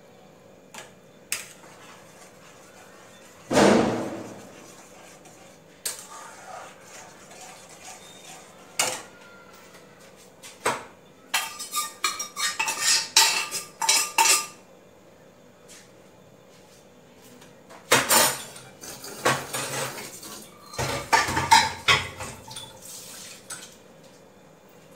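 Metal cookware and utensils clanking and clinking: one loud clank with a ringing tail about three and a half seconds in, then scattered knocks and two long clattering spells of steel pots, containers and a ladle being handled.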